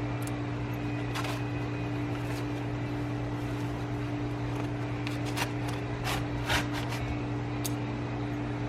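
A steady low mechanical hum from a running motor or engine, with several sharp clicks or taps, most of them about five to eight seconds in.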